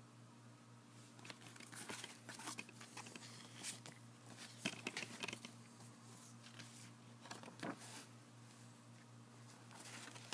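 Paper inserts and a booklet being handled and slid out of a plastic DVD case: paper rustling and crinkling with light clicks and taps, coming in bursts over a low steady hum.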